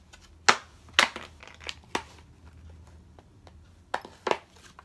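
Stiff plastic packaging crinkling and crackling in the hands as a collectible coin is taken out, a handful of sharp crackles, the loudest about half a second and a second in and two more near the end.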